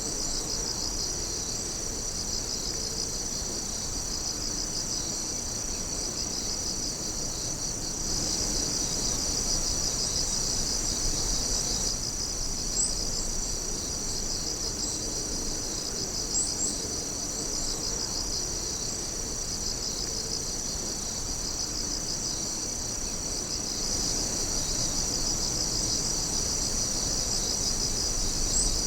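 Night chorus of crickets and other insects chirping steadily in a dense, high-pitched, pulsing trill, with a few brief louder chirps standing out.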